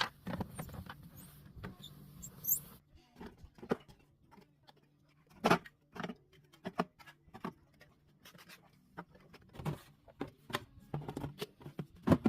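Scattered light knocks, clicks and clatter of household items being handled and set down at an irregular pace, with a faint low hum for about the first three seconds.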